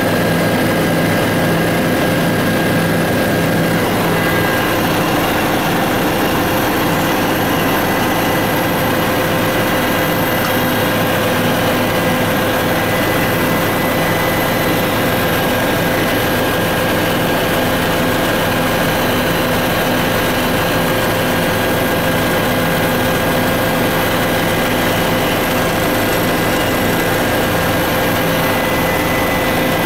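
Tour helicopter in flight: a steady, loud mix of rotor and turbine engine noise with constant whining tones running through it.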